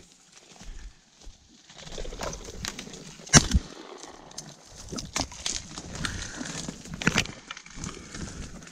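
Dry reed stalks rustling and crackling as someone pushes through a dense reed bed on foot, with a sharp crack about three and a half seconds in, the loudest sound, and smaller cracks around five and seven seconds.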